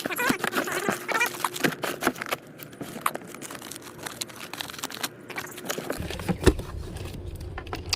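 Rustling, crinkling and irregular clicks of packaged items and belongings being handled by hand while a bin is sorted. A low steady hum comes in about three-quarters of the way through.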